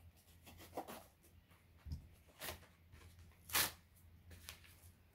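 Mail packaging being handled and opened: a plastic mailer and a padded envelope crinkling and tearing in a few short rustles, the loudest about three and a half seconds in, with a soft thump near two seconds.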